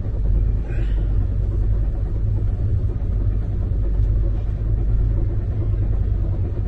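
Steady low rumble of the Saraighat Express running along the track, heard from inside a closed AC coach compartment.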